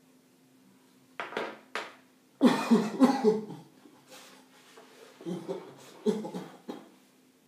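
A man coughing after drawing smoke from a bong: two short coughs about a second in, then a loud, harsh fit of coughing, and a few more coughs near the end.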